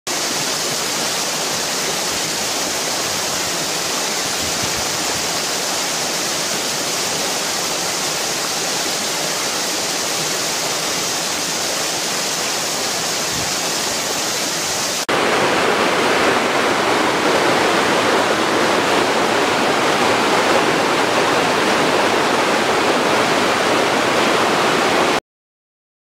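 Waterfall rushing steadily, a bright hiss of falling water. About halfway through it switches abruptly to a louder, deeper rush, which cuts off suddenly near the end.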